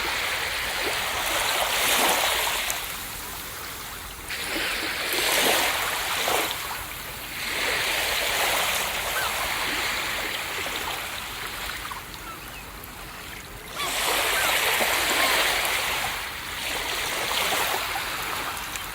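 Ocean surf breaking on a beach: a wave crashes every few seconds, each a swelling rush of water that fades back to a hiss before the next.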